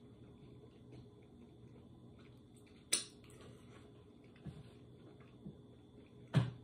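Quiet eating sounds from a man chewing a fried hot-chicken slider. There is a sharp smack about three seconds in and another near the end, with two softer clicks between them.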